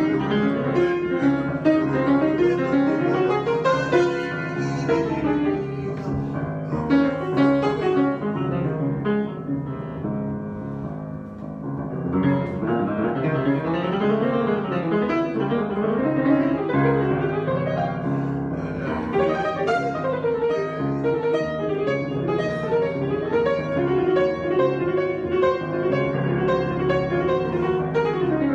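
Improvised instrumental music on a keyboard, with flowing runs of notes. It turns softer for a few seconds about ten seconds in, then builds again.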